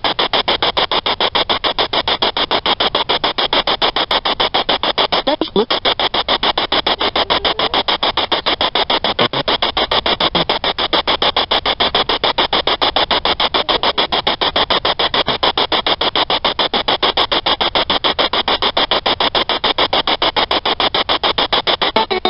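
Spirit box sweeping through radio frequencies: a loud, steady chopping of static bursts, many a second, with faint snatches of tone.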